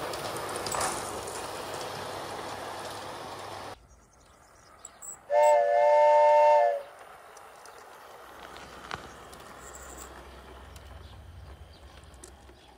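Toy garden-scale train running on its track with a steady rolling rattle that stops abruptly about four seconds in. A second or so later comes a loud train whistle, a chord of a few held tones lasting about a second and a half, then faint running on the track.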